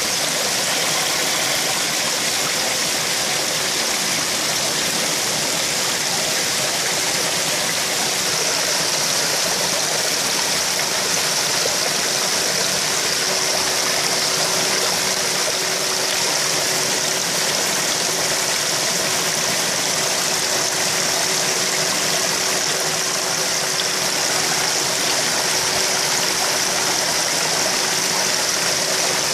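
Steady rushing and bubbling of koi pond water churned by aeration, with a faint steady hum underneath.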